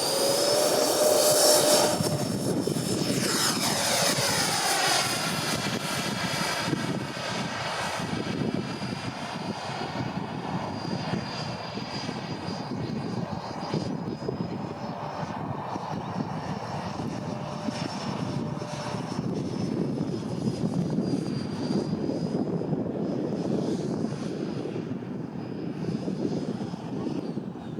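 Twin 80 mm electric ducted fans of a Freewing MiG-29 model jet whining in flight. The sound is loudest as it passes close about a second or two in, with a sweeping sound as it goes by, then goes on as a high whine that wavers in pitch with the throttle.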